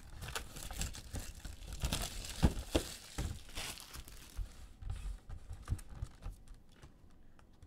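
Packaging crinkling and tearing as a Tristar Autographed Mini Helmets cardboard box is handled and unwrapped, with a few sharper snaps in the middle. It thins to occasional rustles near the end.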